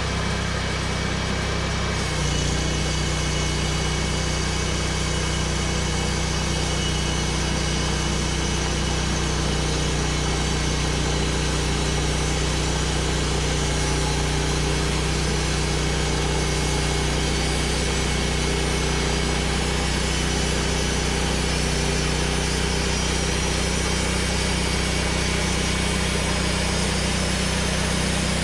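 Homebuilt bandsaw mill's gas engine running steadily as the band blade cuts along a log. Its pitch steps up about two seconds in and holds there.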